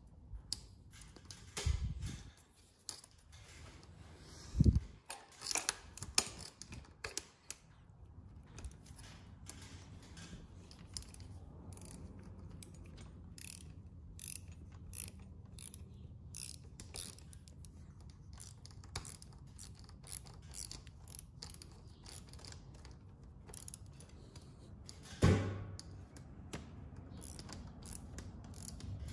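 Hand ratchet with an 8mm socket clicking in quick runs as a bolt is tightened, with a few sharp metal knocks, the loudest about five seconds in and again near the end.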